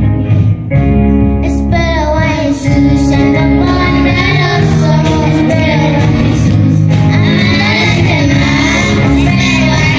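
Live worship-band music: an instrumental part on keyboard, drums and percussion, then about a second and a half in a group of children's voices comes in singing a Spanish-language worship song over the band.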